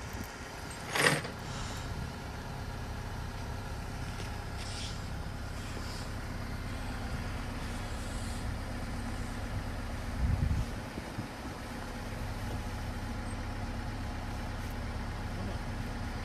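Vehicle engine idling steadily. There is a sharp knock about a second in, light clinks a few seconds later, and a dull thump near the middle.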